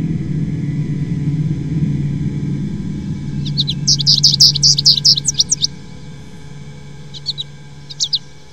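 A small songbird twittering: a quick run of high chirps lasting about two seconds, then two short chirps near the end, over a low steady hum that fades away.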